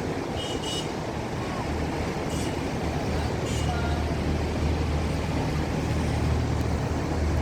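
A ship's engine runs with a steady low drone that grows louder about two seconds in, over a constant rush of wind and water noise.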